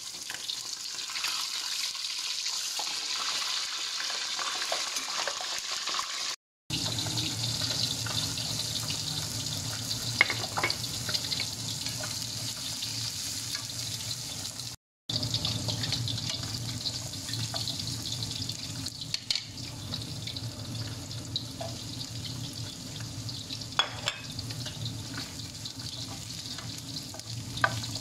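Hot oil sizzling in a steady hiss, first around a whole fish frying in a wok, then around onions and garlic, later with carrots, being stirred with a wooden spatula in a frying pan. The sound drops out twice briefly, a low steady hum runs under the later part, and there are a few light clicks.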